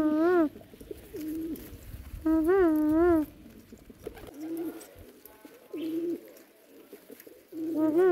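Domestic pigeons cooing: a run of low, wavering coos that rise and fall in pitch. They are loud near the start and again a couple of seconds in, fainter in the middle, and loud again near the end.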